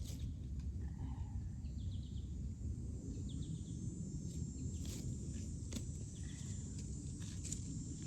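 Woodland ambience: a steady low rumble with a few faint, short bird chirps and a couple of sharp clicks.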